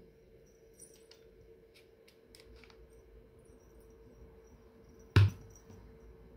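Hands working faux fur on a sweatshirt: a few faint small clicks in the first few seconds, then a single sharp thump about five seconds in, the loudest sound, over a faint steady hum.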